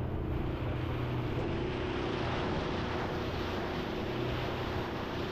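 Small fishing boat's engine running steadily, a low even hum under the noise of wind and water.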